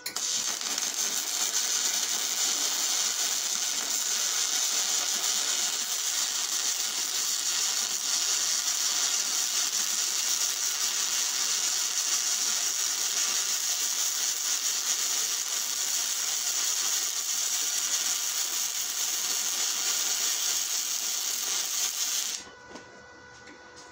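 Spool-gun MIG arc welding aluminum: a steady, even hissing crackle of the arc that starts at once and cuts off abruptly about 22 seconds in as the bead ends.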